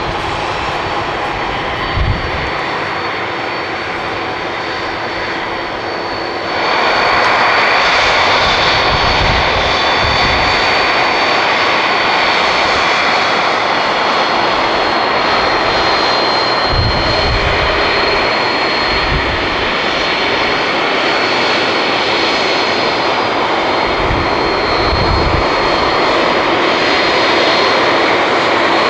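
Boeing 767-300ER jet engines running steadily, growing louder about six and a half seconds in and then holding at the higher level, with a thin steady whine above them and occasional low wind thumps on the microphone.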